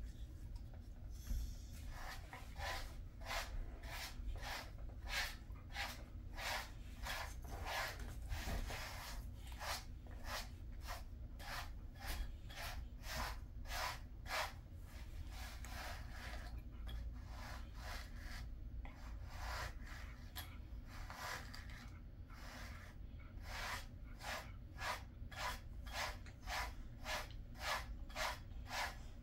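A pet brush stroked repeatedly through a Jindo dog's coat, one brushing stroke about every half second, starting about two seconds in.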